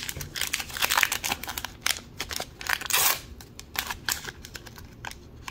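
Crinkling and tearing of a small plastic wrapper being pulled open by hand: a run of quick, sharp crackles, loudest about three seconds in.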